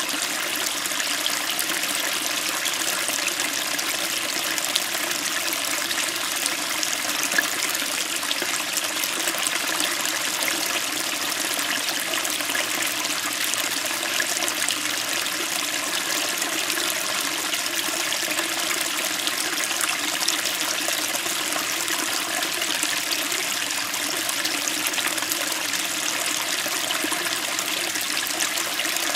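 Small stream flowing over rocks: a steady, crisp babble of water splashing against stones.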